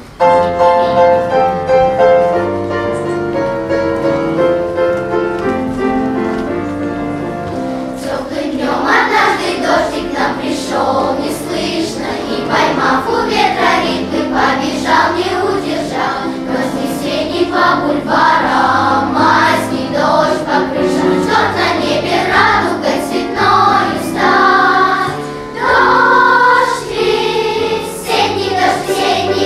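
Children's choir singing a song with accompaniment. The song opens with steady held notes, and the choir's singing comes in about eight seconds in.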